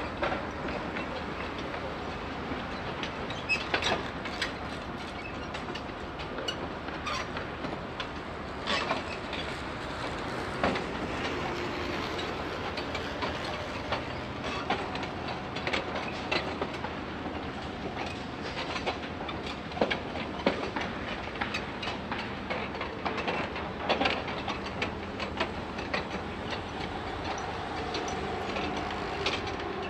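Construction site ambience: steady machinery noise with frequent irregular sharp metal clanks and knocks.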